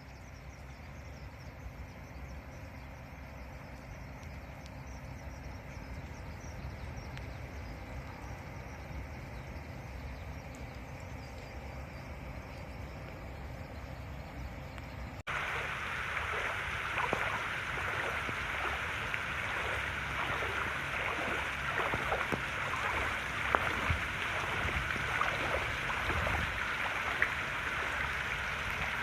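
Steady low rumbling outdoor noise. After a cut about halfway through, heavy typhoon rain comes in, falling steadily with many drops tapping on surfaces.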